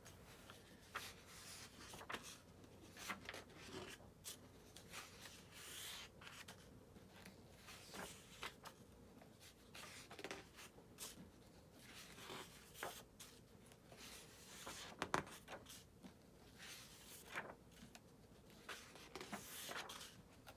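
Faint rustling of book pages being turned and handled, with soft paper scrapes and brushes every second or two.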